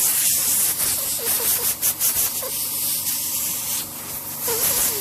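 Air spraying at a keyboard: a steady hiss broken by a few quick spurts about a second and a half in, blowing dust and debris out from under the keys.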